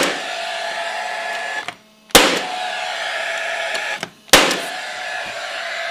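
Brad nailer driving brad nails through trim molding into the wall. It gives three sharp shots about two seconds apart, each followed by a steady mechanical hum lasting nearly two seconds.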